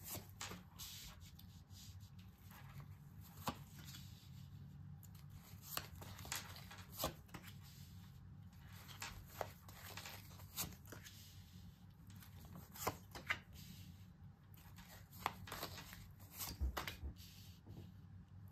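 A tarot deck being shuffled by hand and cards laid down one at a time on a cloth-covered table: soft sliding and riffling with irregular sharp card snaps and taps.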